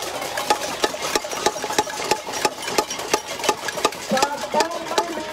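A large crowd clapping, many sharp claps overlapping at a quick pace.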